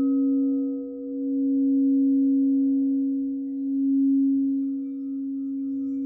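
Singing bowls ringing: one steady low tone swells and fades in slow waves. A second bowl, struck right at the start, adds higher ringing tones.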